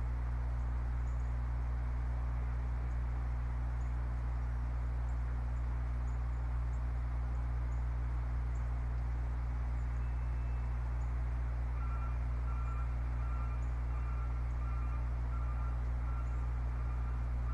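Steady low hum with a hiss over it, the unchanging background of an outdoor nest camera's microphone. From about two-thirds of the way through, a faint high beep repeats.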